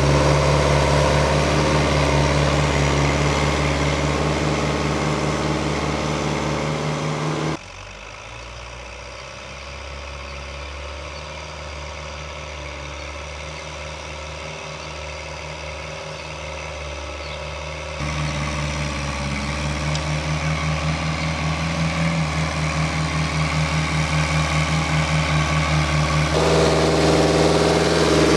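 Fiatagri 70-90 tractor's diesel engine running steadily under load while pulling a plough. It drops suddenly to a fainter, more distant sound about a quarter of the way in and comes back loud about two-thirds through.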